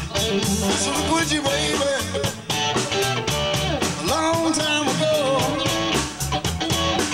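Electric blues band playing live: electric guitar, bass and drums driving a steady beat with regular drum hits, and a lead line bending up and down in pitch about four seconds in.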